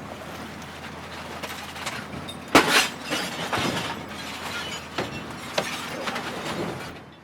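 Glass and plastic appliances being smashed and crushed: a continuous crunch and rattle of debris broken by sharp impacts, the loudest crash about two and a half seconds in, more hits a few seconds later, then fading out.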